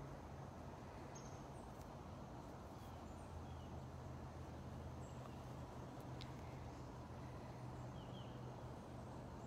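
Quiet outdoor background: a steady low hum with a few faint, short bird chirps and a single faint click about six seconds in.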